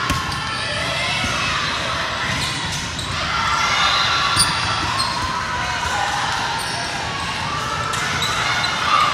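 Volleyball being played in an echoing gym: a background of spectators' and players' voices, with a few sharp knocks of the ball being hit or bouncing on the court floor, one about four and a half seconds in and another near the end.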